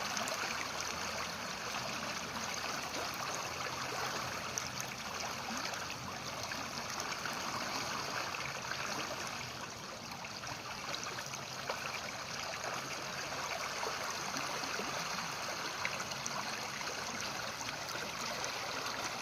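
Stream water flowing, a steady, even rush of water with small splashes, dipping slightly about halfway through.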